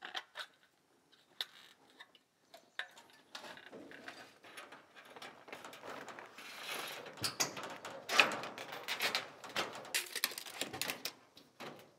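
Metal J-channel trim being cut and handled: a run of sharp clicks and light metallic clatter, sparse at first and busier in the second half.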